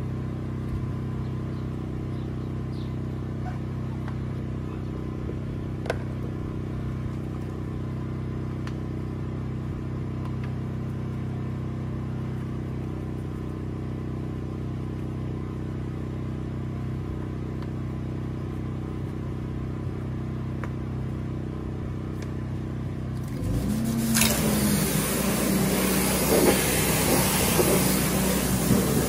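A motor runs steadily with a low, even hum. About 24 seconds in, a loud hissing spray of water starts over it, typical of a pressure washer spraying during a foam wash.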